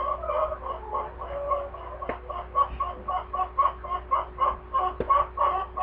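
Chickens clucking in a steady run of short notes, about three a second.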